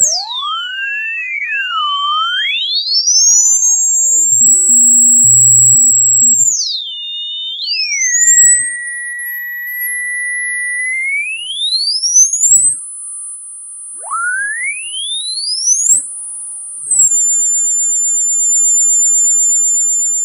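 Electronic pure tones sweeping slowly up and down in pitch, sometimes two at once crossing each other, then settling into steady high-pitched whistles near the end, with a brief low buzz about five seconds in. It is a synthesized sound played as a rodent repellent.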